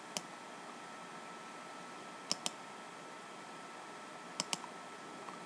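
Computer mouse clicking in quick pairs: once at the start, again about two seconds in, and again a little past four seconds, over a faint steady hiss with a thin high hum.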